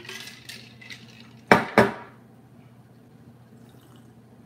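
A thick blended drink poured from a glass blender jar into a glass and scraped out with a wooden spoon, followed by two loud, sharp knocks about a second and a half in.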